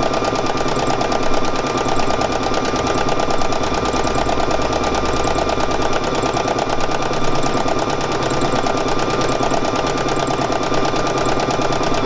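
Domestic sewing machine running continuously at a steady fast speed for free-motion embroidery, the needle and spring-loaded darning foot tapping in a rapid, even rhythm as the hoop is moved by hand.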